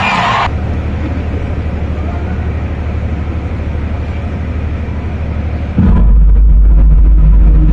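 Steady low rumble of a crowded indoor arena, with a loud low hum that comes in suddenly about six seconds in.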